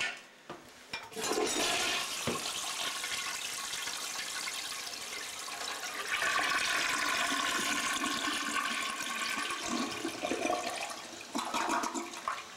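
Water rushing and gurgling for about ten seconds, swelling louder about halfway through.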